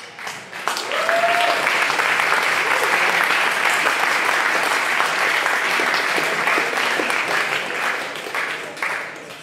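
Audience applauding loudly, swelling about a second in and fading near the end.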